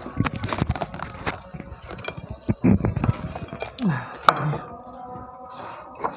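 Dishes and cutlery clinking and knocking on a table: a run of quick sharp clicks through the first three seconds, then a brief murmur of a voice about four seconds in.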